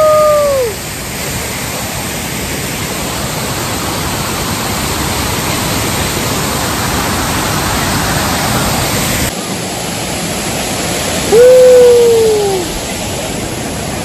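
Waterfall water rushing steadily. A loud whooping shout trails off at the very start, and another long whoop, falling in pitch at its end, comes about eleven and a half seconds in.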